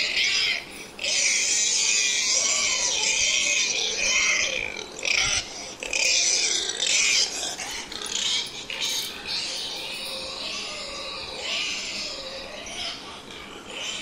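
Pig squealing: long, noisy high squeals broken by short pauses, quieter from about eight seconds in.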